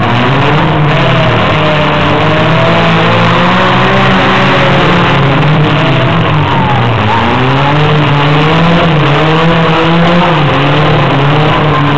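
Several demolition derby compact cars' engines revving hard together, their pitch rising and falling continuously. The main engine note dips about seven seconds in and climbs again.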